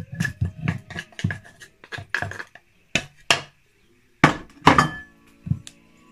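Wooden spoon knocking against the inside of a wooden Thai mortar as dressing is stirred: quick taps about four or five a second, thinning after a couple of seconds to a few separate louder knocks as the mortar is handled.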